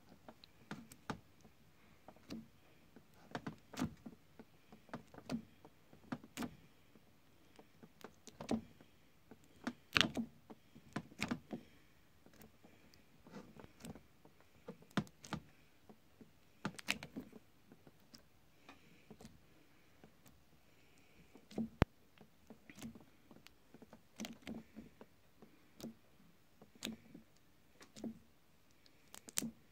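Metal tines of a honeycomb uncapping fork scraping wax cappings off a frame of comb, in short, irregular scrapes and clicks, some sharper than others.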